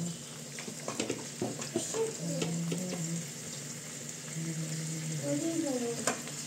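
A metal spoon scooping cooked rice out of a metal bowl, with small scrapes and clicks of the spoon against the bowl, over a steady hiss.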